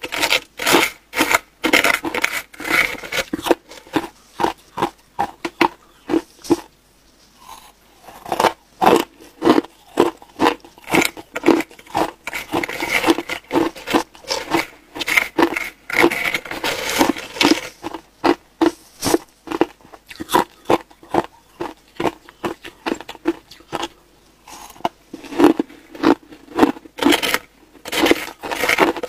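Hard crushed ice being bitten and chewed close to the microphone: a fast run of crisp crunches, a few per second, pausing briefly twice.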